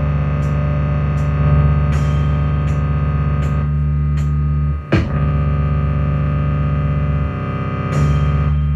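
Electronic beat music: a heavy sustained bass line under light high ticks, with a short dip and a hit about five seconds in.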